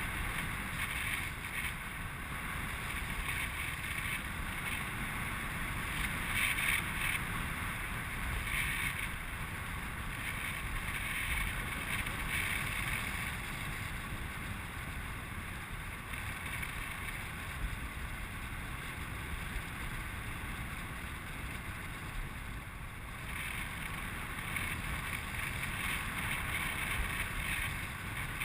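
Wind rushing over the microphone in flight on a tandem paraglider: a steady noisy rush that swells and eases slightly.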